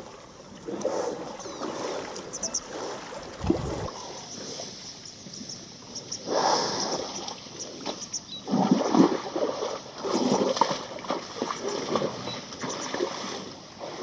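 A herd of Cape buffalo wading and wallowing in a river, with water sloshing and splashing irregularly around them. The splashing is loudest in bursts around the middle and in the second half.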